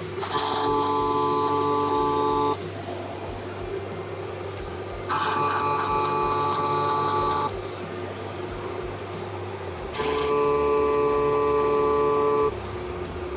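MIG welder arc on a steel frame, laying three short stitch welds of about two and a half seconds each with pauses between them. Each weld is a steady buzz with a hiss over it.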